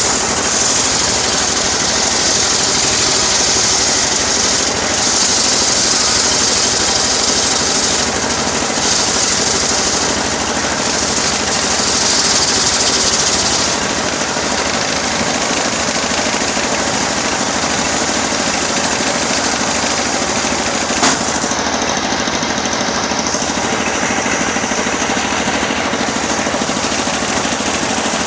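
Engine-driven homemade sawmill running steadily as it saws teak, with stretches of a brighter, hissing cutting sound in the first half before it settles to a steady run. A single sharp click about two-thirds of the way through.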